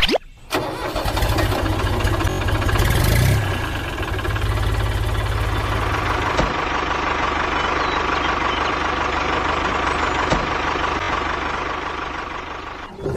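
An engine running steadily, with a heavier low hum for the first few seconds that then settles to an even running note.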